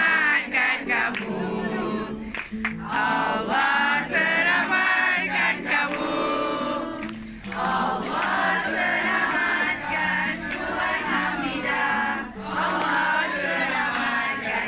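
A song with several voices singing together in chorus over a steady bass line.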